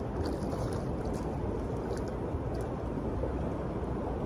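Steady rush of shallow river water running over stones close by.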